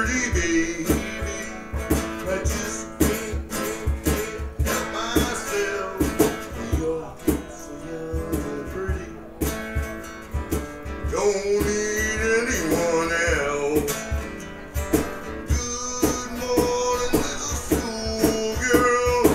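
Live blues guitar playing an instrumental break between sung verses: single-note lines, some of them bent, over a steady low beat of about two a second.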